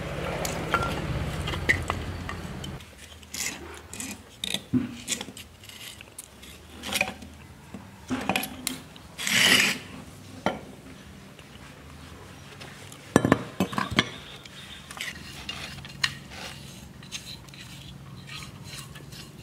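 Metal parts of a rusty electric motor being handled during disassembly: a scraping sound for the first few seconds, then scattered clinks and knocks of the end cover, rotor and steel tool against the housing, with a louder rasping burst about nine seconds in and sharp knocks around thirteen seconds.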